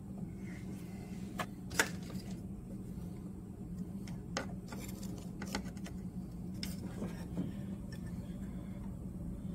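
Scattered light clicks and knocks of hands working a new rubber fuel hose onto its fitting among metal hose clamps, over a steady low hum.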